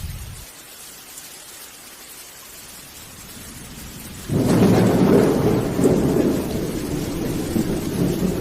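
Rain falling steadily while a low roll of thunder dies away at the start. About four seconds in, a loud clap of thunder breaks suddenly and rumbles on to the end.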